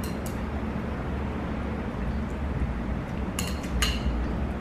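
Chopsticks clinking against a bowl of udon noodles while eating: a light clink at the start and two more about three and a half seconds in, over a steady low hum.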